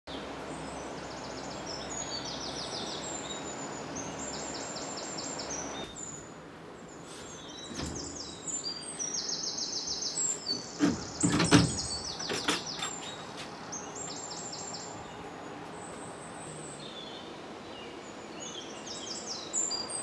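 Forest birds singing over and over in high, repeated trilling phrases, over a steady background hiss. About halfway through come a few sharp knocks and bumps, the loudest sounds here, as wooden window panels are pushed open.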